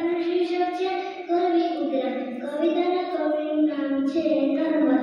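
A young boy reciting a Gujarati poem into a microphone in a sing-song, chanted melody, holding long notes that rise and fall.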